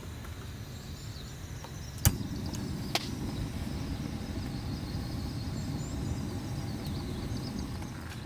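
Steady low outdoor rumble, a little louder after a sharp click about two seconds in, with a second, weaker click about a second later.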